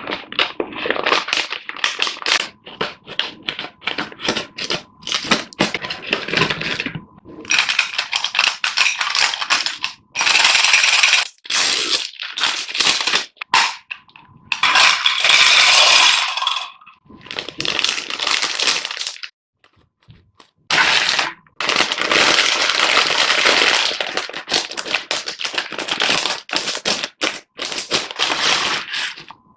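Plastic candy packaging crinkling and tearing as it is opened, with small candies clattering and rattling as they are poured out. The sound comes in stop-start bursts of crackles and clicks with short pauses between them.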